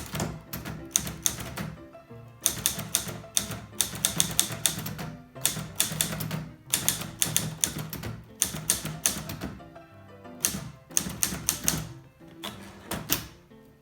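Olivetti Lettera 22 portable manual typewriter being typed on as a test: quick runs of key strikes in bursts, broken by short pauses.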